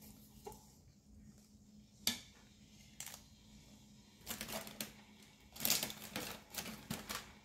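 Small plastic seasoning packets crinkling and rustling as they are handled and torn open, in several short bursts in the second half. A light knock about two seconds in from a wooden spoon being set down.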